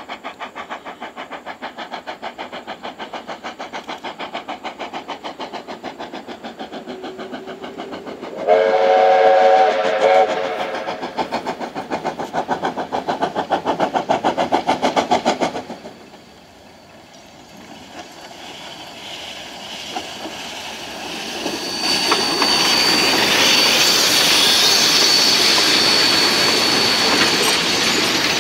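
NZR A class steam locomotive A428 working toward the listener with steady, rhythmic exhaust beats. About a third in it sounds its steam whistle once for about two seconds. The exhaust beats stop suddenly about halfway through, and in the last third the freight wagons roll past with a loud rushing rumble and a thin, high wheel squeal.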